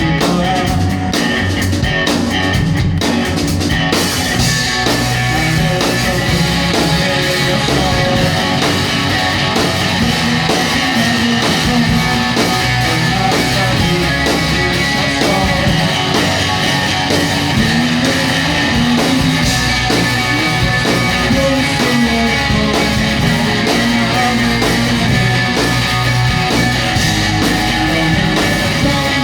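Rock band playing live, with guitars over a drum kit; the sound grows fuller and brighter about four seconds in.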